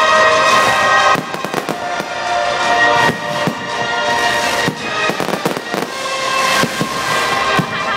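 Fireworks display: aerial shells bursting in a run of sharp bangs and crackles, over music playing loudly along with the show.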